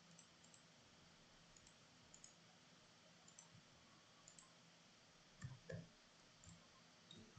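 Near silence with a few faint, scattered computer mouse clicks, and a couple of soft low thumps about five and a half seconds in.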